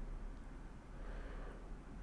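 Faint steady background hiss of room tone and microphone noise, with no distinct sound.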